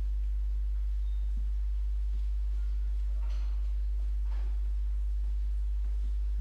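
Steady low electrical mains hum from the hall's microphone and sound system, unbroken throughout, with a couple of faint soft sounds of movement about three and four seconds in.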